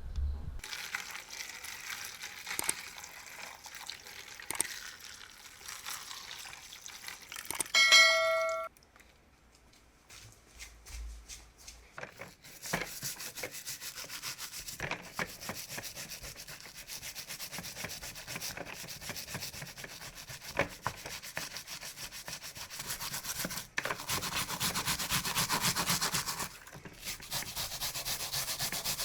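Repeated abrasive rubbing, like hand sanding or scrubbing a part, with a short loud ringing tone about eight seconds in, then a quieter pause before the rubbing starts again.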